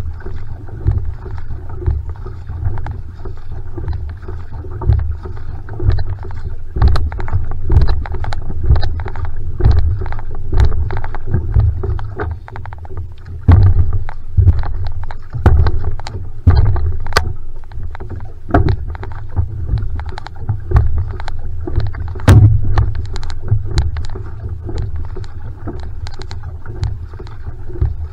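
Va'a outrigger canoe under steady paddling: the paddle blade catches and splashes in the water about once a second, over a constant low rumble.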